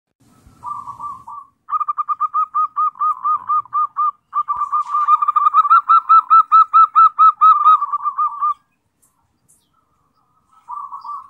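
Zebra dove (perkutut) cooing song: fast runs of short rising-and-falling notes, about five a second. A brief phrase opens, a long run follows, then a pause before a short phrase near the end.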